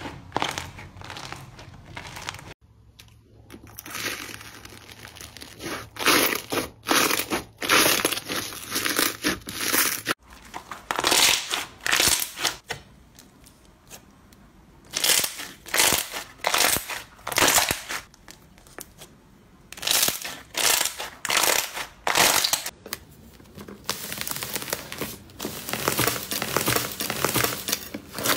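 Hands squeezing, pressing and stretching textured slime, giving repeated short bursts of sticky popping and crackle, clustered with brief pauses between them. The sound changes abruptly twice, as one slime clip gives way to the next.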